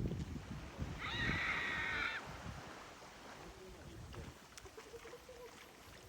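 A single drawn-out, high animal call lasting about a second, over a low rumble of wind on the microphone that dies down after the call.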